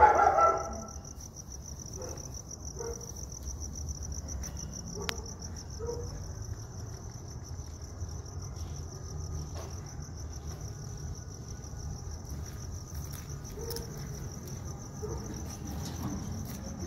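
Crickets chirping in a continuous high, steady trill, with one brief loud burst of sound right at the start.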